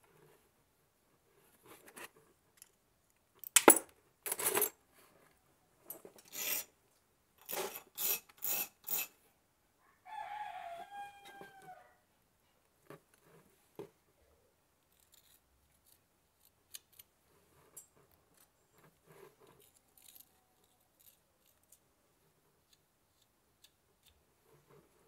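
Glass nippers snipping hand-cut mosaic glass: a run of sharp snaps and clicks, loudest between about three and nine seconds in, with fainter clicks of glass pieces being handled later on. About ten seconds in comes a short pitched call that falls away at its end.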